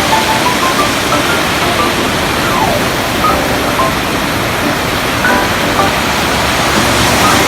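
Steady rushing noise of ocean surf, with light background music of scattered melodic notes over it.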